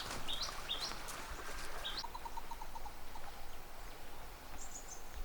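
Wild birds calling: a few short rising chirps, a quick run of about eight lower notes around two seconds in, and a cluster of very high chirps near the end, over a faint outdoor background.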